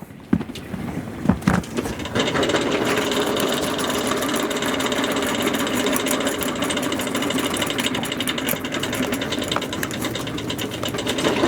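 Hand-cranked honey extractor being spun, its gears giving a steady, fast mechanical rattle and whir that starts about two seconds in, after a few knocks.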